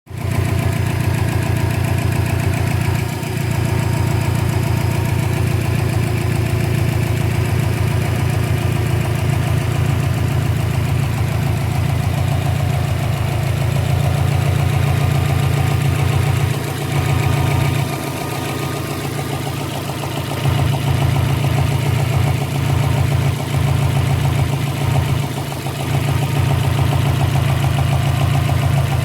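2012 Subaru Impreza WRX's turbocharged flat-four engine idling with an uneven popping, its level dipping briefly a few times. The popping is put down to a loose intake manifold.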